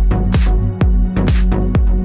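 Electronic dance music with a steady kick drum and a snare hit about once a second.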